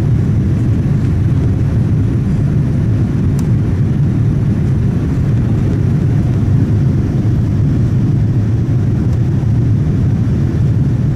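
Steady low rumble of jet engines and rushing air heard inside the cabin of a Boeing 787-9 climbing out after takeoff.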